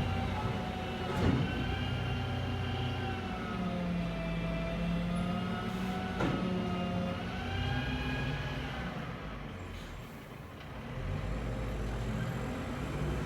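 Street traffic: a heavy vehicle's engine running, its pitch drifting slowly up and down over a low rumble, with two sharp knocks about one and six seconds in. The sound eases briefly near the end, then picks up again.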